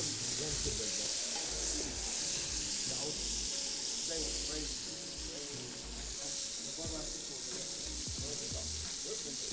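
Chunks of beef brisket sizzling steadily as they brown in hot oil in a large stainless steel pot, turned now and then with a wooden spoon.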